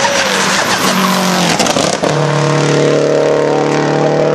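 Race car passing close at speed. At first there is a loud rush of engine and tyre noise with the engine pitch shifting, then about two seconds in the engine settles into a steady high note as the car pulls away uphill.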